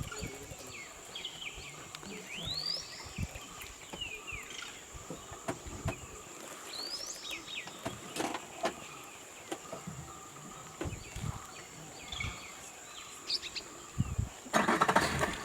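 Riverside forest ambience: a steady high insect drone, with birds calling in short rising whistles several times and scattered sharp knocks. Near the end comes a rush of water along the boat.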